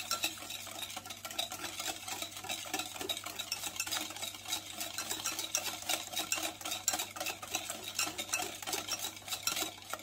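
Wire balloon whisk beating eggs and sugar in a glass bowl: a fast, steady clatter of the wires ticking against the glass.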